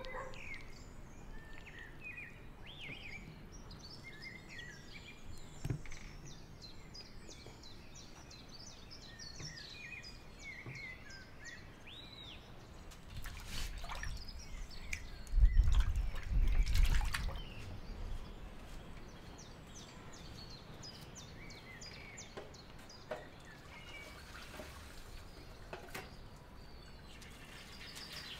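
Small birds chirping throughout. Around the middle, water splashing and sloshing as raw mackerel are rinsed by hand in a tray of water, the loudest part a few seconds of low rumbling.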